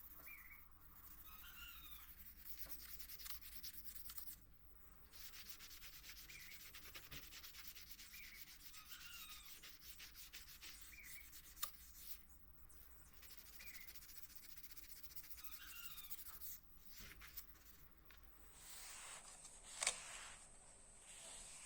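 Sandpaper rubbing on the steel blade of a rusty Japanese yanagi knife, a steady scratchy hiss with a few short breaks between runs of strokes.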